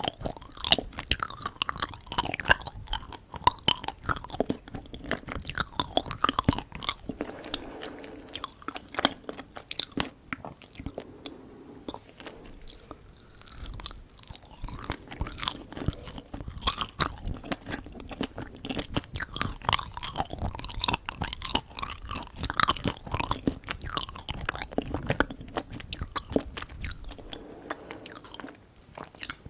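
Close-miked ASMR chewing of Korean sweets: a dense run of small wet, sticky mouth clicks and smacks with crunchy bites, easing off briefly about halfway through.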